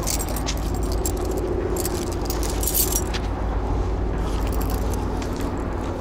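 Keys and a metal keyring jangling in short, irregular clinks as a whistle-and-compass keychain is handled, over a steady low rumble.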